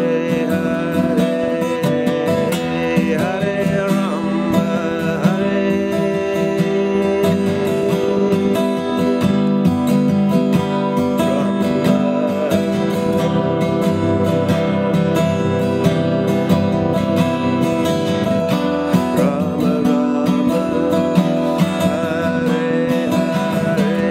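Steel-string acoustic guitar strummed in a steady rhythm, its chords ringing.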